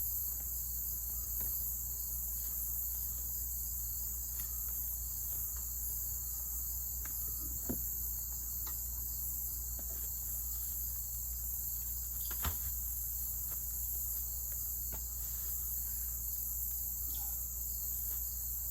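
Insects, crickets by their sound, trilling steadily and high-pitched without a break, with a low steady hum beneath. A few light sharp knocks come through, one about halfway in and a louder one about two-thirds of the way through.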